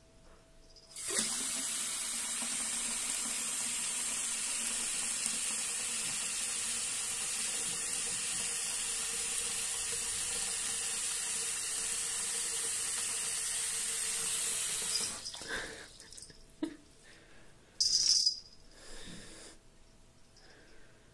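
Bathroom sink tap running, a steady stream of water splashing into the basin, starting suddenly about a second in and stopping about fifteen seconds in. A few short sounds follow, with one brief loud burst of noise near the end.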